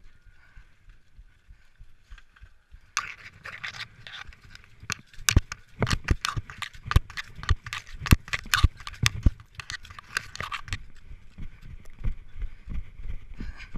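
A runner's heavy panting close to the microphone during an obstacle race. From about three seconds in until about eleven seconds it is overlaid by a rapid run of sharp knocks and scrapes against the body-worn camera while the runner works through an obstacle.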